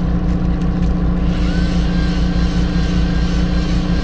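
Fishing boat's engine running steadily: a deep hum that pulses quickly and evenly, with a faint wavering whine over it.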